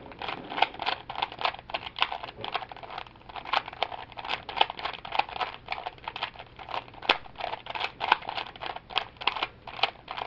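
Plastic 3x3 Rubik's Cube being turned quickly by hand, a rapid run of clicking, clacking layer turns, several a second.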